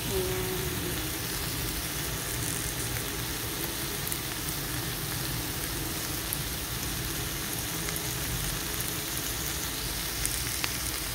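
Sautéed okra, celery, tomato, onion and dried shrimp sizzling steadily in a frying pan on the heat, with a few faint crackles.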